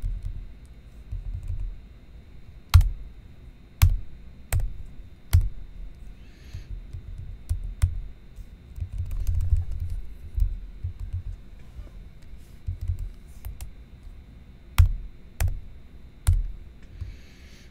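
Typing on a computer keyboard: single hard keystrokes and short runs of key clicks at irregular intervals, each with a low thud, separated by pauses.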